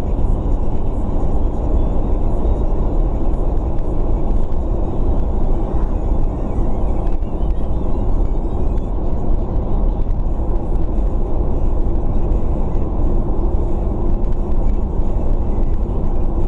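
Steady road and engine noise heard from inside a moving car's cabin, mostly a low rumble with no changes in pace.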